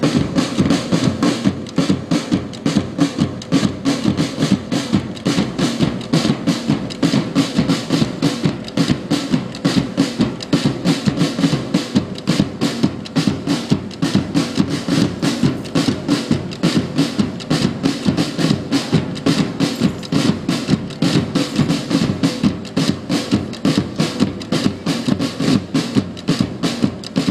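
Marching band playing, its drums beating a quick, steady rhythm with a held tone beneath.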